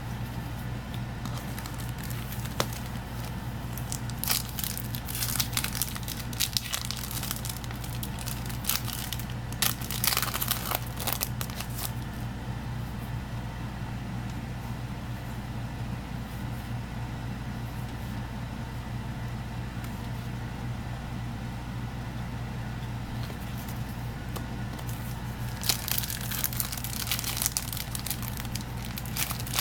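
Foil Yu-Gi-Oh! booster pack wrappers crinkling and tearing as packs are opened and handled, in bursts, thickest in the first third and again near the end. A steady low hum runs underneath.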